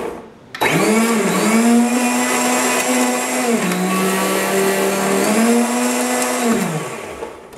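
Omni 3-horsepower blender running with a jar of whole carrots and water, inside a closed sound-enclosure box. It starts up about half a second in. Its pitch sags for a couple of seconds in the middle, then rises again, and it winds down near the end. The whole carrots are barely drawn into the blades.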